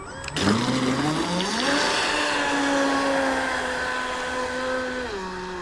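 Scorpion 4035 800kv brushless outrunner motor in an RC speedboat whining as it is throttled up hard about half a second in, its pitch climbing for a second or two and then holding steady at speed, over the hiss of the hull and spray across the water. The pitch dips slightly near the end as the throttle eases.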